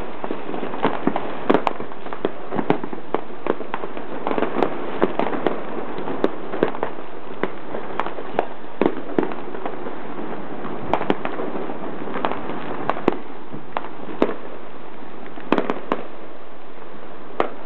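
New Year fireworks display: a continuous din of bursts with frequent sharp bangs at irregular intervals.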